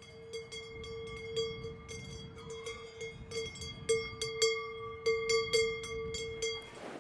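Cowbell on a walking cow's neck strap, swinging and clanking at uneven intervals, each strike setting off one ringing note. It falls silent near the end.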